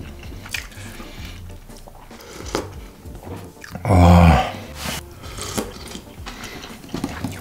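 Background music with a steady bass line over the sounds of someone eating stew: a metal spoon clicking against the pot, sipping and slurping, and a loud mouth-and-voice sound about four seconds in.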